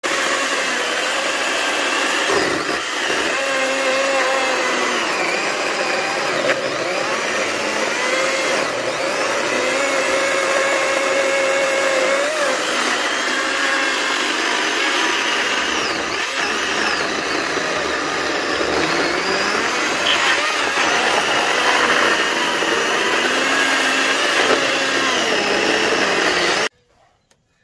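Greenworks 80V battery chainsaw running and cutting through wood slabs, its electric motor and chain whining steadily with the pitch rising and falling as it works. It cuts off suddenly near the end.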